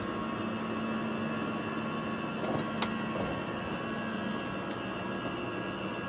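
Wall-mounted air conditioner indoor unit running, its fan blowing a steady stream of air with a low hum, its clogged filter freshly cleaned. A light click comes about three seconds in.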